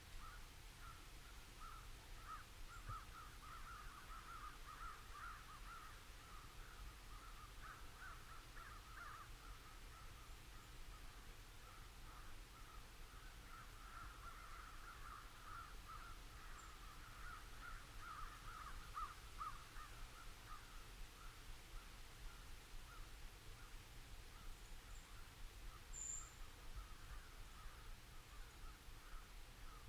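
Faint, continuous cawing of many crows, a dense chatter of short overlapping calls, over a low rumble.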